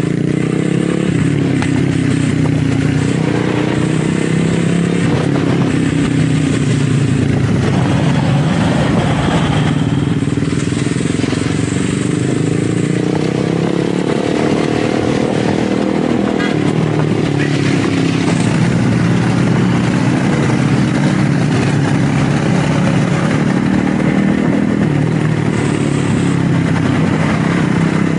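Motorcycle engine running while ridden along the road, its note climbing through the middle and dropping back in the second half as the throttle changes.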